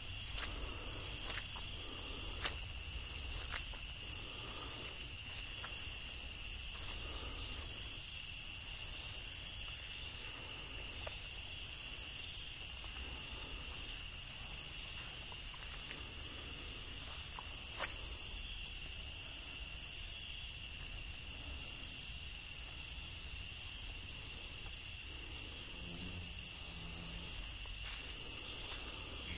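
A steady chorus of night insects held on several high pitches, with soft footsteps through grass and leaf litter and a few faint clicks.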